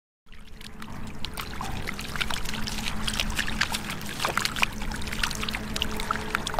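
Many catfish thrashing in shallow muddy water: a dense, irregular patter of small splashes and wet slaps, over a steady low hum.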